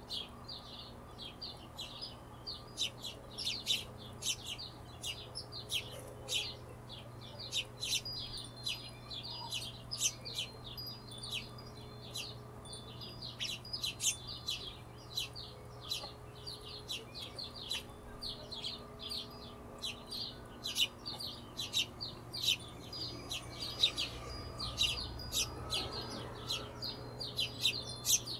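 Hummingbirds giving rapid, high, short chips, many overlapping in a continuous stream, over a faint steady low hum.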